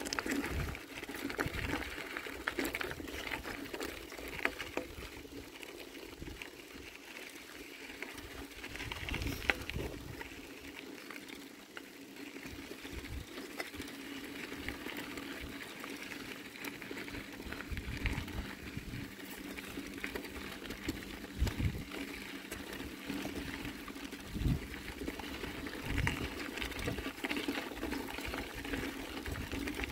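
Bicycle tyres rolling over a gravel trail: a steady crackling crunch full of fine ticks, with occasional low thumps as the bike goes over bumps.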